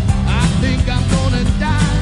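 Background music with a steady beat and a singing voice.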